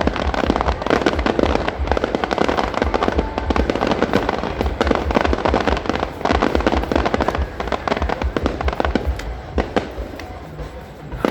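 Fireworks display: a dense, continuous run of rapid bangs and crackles that thins out a little near the end.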